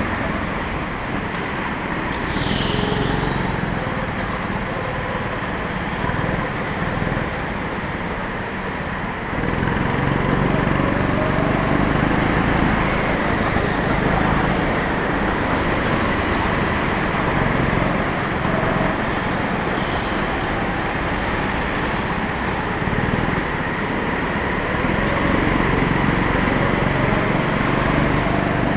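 Rental go-kart's small engine running on the throttle through a lap, heard on board the kart with road and wind noise; it gets louder about nine seconds in.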